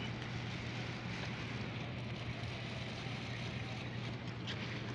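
A steady low hum over a constant background rumble, with no distinct events.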